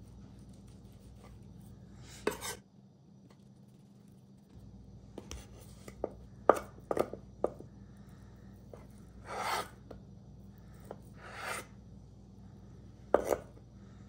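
Ceramic knife cutting pressed tofu on a bamboo cutting board: irregular sharp taps of the blade against the board, mixed with a few longer slicing strokes, about nine in all.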